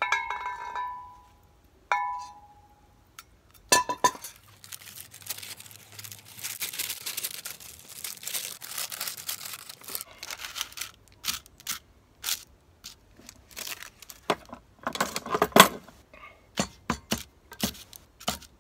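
Two ringing metal clinks as a lid lifter strikes and lifts the lid of a Petromax FT3 cast-iron Dutch oven, then a knock. Baking paper rustling and crinkling for several seconds while it is handled and cut with scissors, followed by a run of sharp clicks and knocks as the paper is pressed into the pot.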